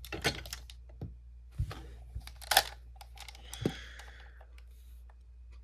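Plastic clicks and snaps from an Ultraman X 'X Devizer' toy being handled and unfolded, several separate clicks with the sharpest about halfway through, and a short sliding rub of plastic a little later.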